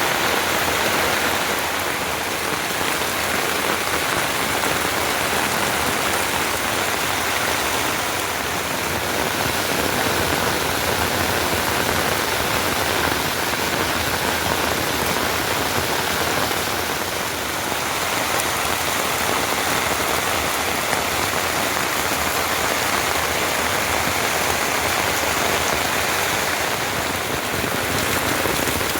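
Heavy rain falling steadily, an even hiss of rain that does not let up.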